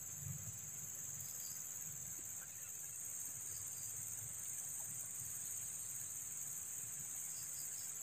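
Steady, unbroken high-pitched insect chorus, with a faint low rumble of flowing stream water beneath and a few faint short chirps.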